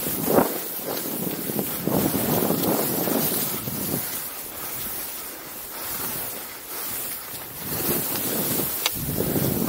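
Wind rushing over the camera microphone, mixed with skis hissing and scraping over snow during a downhill run. The noise swells and eases with the turns and is quieter midway. There is one sharp click near the end.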